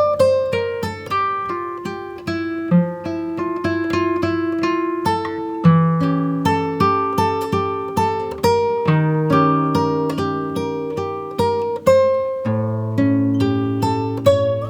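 Background music: acoustic guitar picked and strummed, notes struck about twice a second and ringing out.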